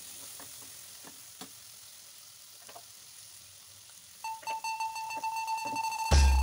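Fish fat, onions and spices frying softly in mustard oil in a frying pan, with a few light taps of a silicone spatula stirring. About four seconds in, a steady high tone comes in, and background music with a beat starts near the end.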